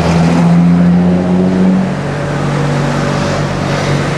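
Pickup truck driving past close by, its engine note dropping to a lower pitch about two seconds in, over steady road traffic.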